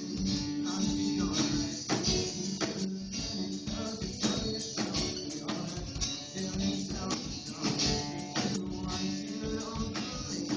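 Music: a song played with a steady, evenly spaced strummed rhythm over held low notes.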